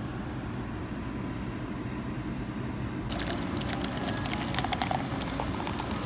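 A soda-chilling machine's motor hums steadily as it spins a plastic soda bottle. About three seconds in, this gives way to a dense crackling fizz of carbonated soda pouring and foaming in a plastic cup.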